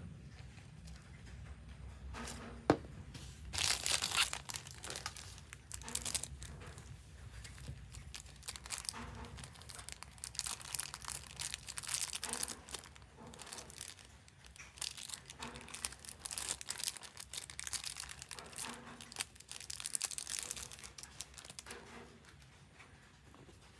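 Thin clear plastic bag crinkling and tearing in the hands as a small accessory is unwrapped, in short irregular bursts, with one sharp click about three seconds in.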